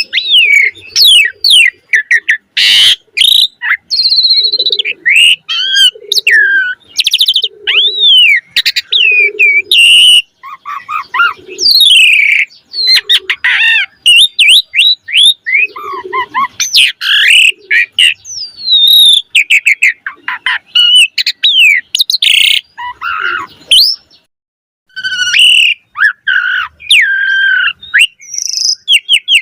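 Asian pied starling (jalak suren) in full song: a loud, fast, varied stream of whistles, rapid chirp runs and harsh notes, rich in phrases mimicked from other birds, with one brief pause near the end.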